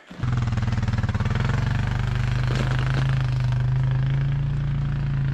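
Four-wheeler (ATV) engine running steadily at low speed with an even, low hum.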